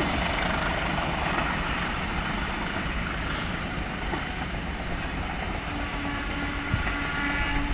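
Passing train: a steady rush of wheel and carriage noise, with a train horn sounding faintly from about six seconds in.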